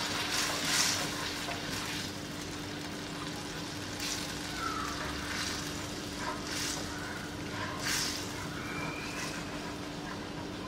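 Metal spoon stirring coconut milk and water in a nonstick wok: the liquid swishes, and every second or two the spoon scrapes the pan, once or twice with a short squeak. A faint steady hum runs underneath.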